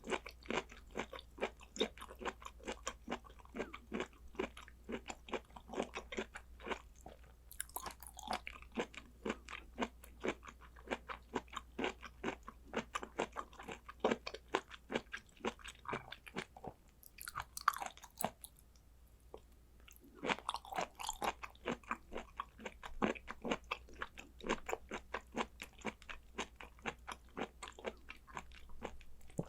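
Close-miked chewing and biting of raw blood clam (ark clam) sashimi: rapid, wet, slightly crunchy chews, a few per second, with a brief pause about two-thirds of the way through.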